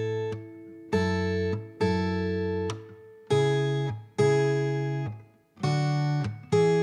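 Background music: an acoustic guitar strumming slow chords, each struck and left to ring, about one a second.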